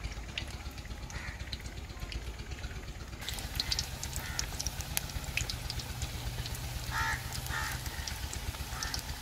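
Vegetable pakora batter deep-frying in hot oil in a steel karahi: a steady sizzle with small crackles and pops, which grows louder about three seconds in as more batter goes into the oil. A few short pitched sounds come through in the background, most clearly near the end.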